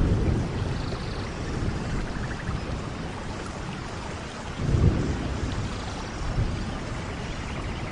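Steady rainforest rain with low rumbles swelling at the start and about five seconds in, and faint high bird calls over the top.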